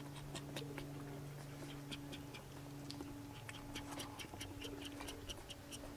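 Puppy suckling from a small feeding bottle: soft, quick clicks that come about four a second in the second half, over a faint steady hum.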